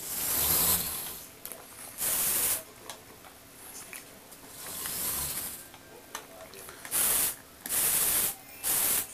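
Motorized Lego Technic motocross bike running on a wooden floor: its small electric motor and plastic gears make a hissing whirr in about six bursts. Some bursts swell and fade, and others start and stop abruptly.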